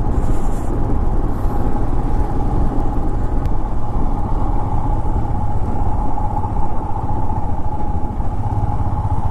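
Motorcycle on the move at a steady speed: the engine runs with a constant hum over a steady rushing noise, with no change in pace.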